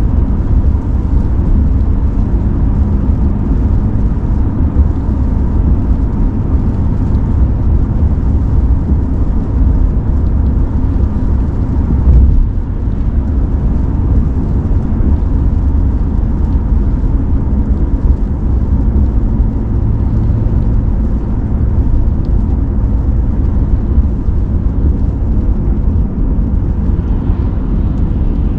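Steady low road and engine rumble heard inside the cabin of a 2020 Mercedes-Benz CLA cruising on the highway, with one brief louder thump about twelve seconds in.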